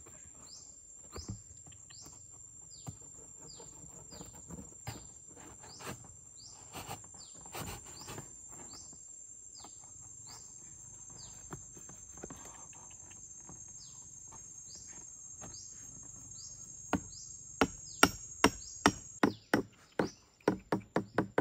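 A knife blade working at cardboard and a bamboo stake: scattered taps and scrapes, then a quick run of loud, sharp knocks near the end as the blade chops into the bamboo. Behind it a steady high insect drone that cuts off shortly before the end, and short falling chirps repeating throughout.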